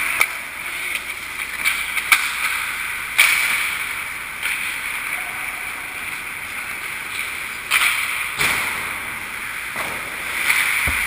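Ice skates scraping and carving on a hockey rink's ice, with a few sharp knocks about 3 s and 8 s in.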